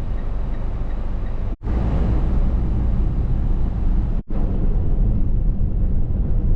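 Car driving on the road: a steady rumble of road and engine noise, cut off abruptly and resumed twice, about one and a half and four seconds in.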